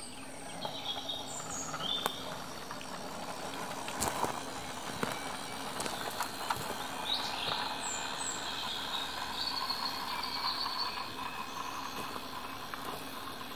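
A garden-scale model train of loaded wagons rolling along outdoor track with a steady running noise and occasional faint clicks. Birds chirp in short calls throughout.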